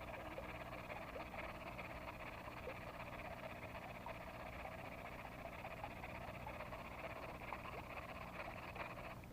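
Chorus of many frogs calling together over a flooded rice paddy, a dense steady mass of short overlapping calls that cuts off abruptly at the end.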